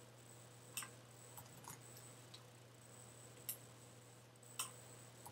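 Faint, scattered clicks of a computer mouse and keyboard, about six over a few seconds, over a low steady hum.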